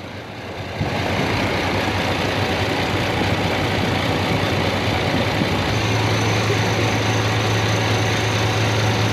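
Isuzu FVZ280 truck's diesel engine running steadily at idle. It gets louder about a second in, and a deeper steady hum joins about six seconds in.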